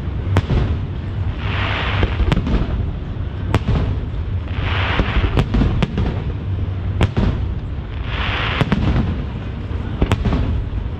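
Aerial fireworks shells bursting: a rapid, irregular series of sharp bangs over a steady low rumble.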